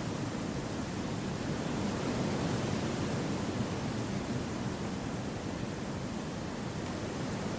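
Steady wind blowing through forest trees: an even, low-weighted noise with no distinct events, swelling slightly about two to three seconds in.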